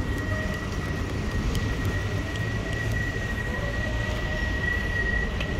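Steady low rumble of urban background noise while walking, with a constant high-pitched whine running over it.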